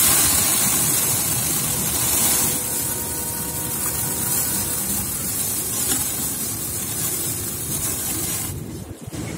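Threshed perilla seeds poured in a steady stream into a basin, a continuous hiss, with wind rumbling on the microphone. The pour breaks off briefly near the end and starts again.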